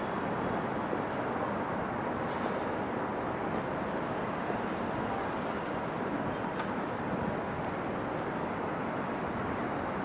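Steady engine and road noise of a city bus in motion, with no distinct events.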